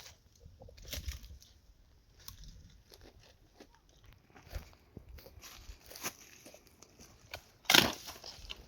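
Dry twigs and brush crunching and crackling in irregular snaps, with one loud, sharp snap near the end.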